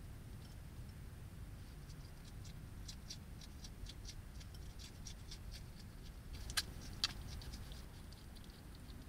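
European hedgehog eating at a feeding house: irregular small crunching clicks of chewing, with two sharper clicks about two-thirds of the way in, over a steady low background noise.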